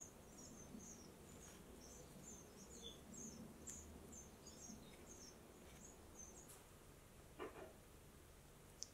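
Faint birdsong over near silence: a small bird chirping short, high, falling notes about twice a second, stopping after six or seven seconds. A single soft knock comes about seven and a half seconds in.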